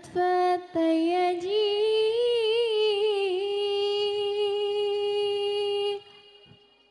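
A woman singing a sholawat solo, without drums, into a microphone. After a few short phrases she sings a wavering, ornamented run, then holds one long steady note that stops about six seconds in.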